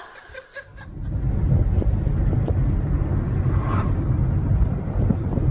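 Steady low rumble of a car heard from inside the cabin, starting about a second in: engine and road noise.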